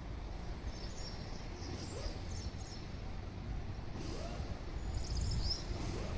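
Small birds chirping in short, high twitters about two seconds in and again about five seconds in, over a steady low rumble.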